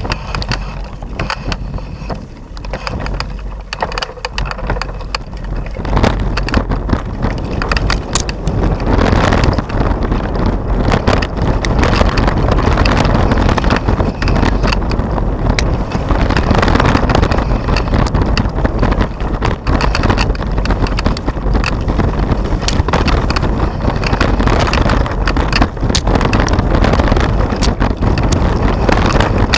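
Mountain bike rattling and knocking over a rough dirt singletrack, with many sharp clicks, and wind buffeting the handlebar-mounted camera's microphone as a constant rumble. It is quieter for the first few seconds and grows louder from about six seconds in.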